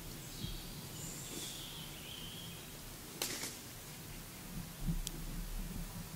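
Forest ambience with faint, distant bird chirps in the first half, a short burst of rustling noise about three seconds in, and a few low bumps near the end.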